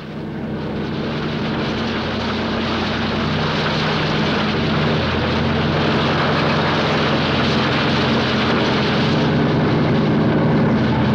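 Ballast-spreading track machine at work: a steady low engine drone with a broad rushing noise over it, as crushed stone ballast is dropped and spread along new rails. It grows slightly louder over the first few seconds, then holds steady.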